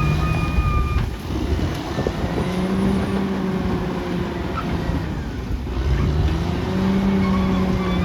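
Caterpillar D6R XL bulldozer's diesel engine running under changing load, its note dipping around the middle and picking up again. A high, thin whine is heard in the first second and again near the end.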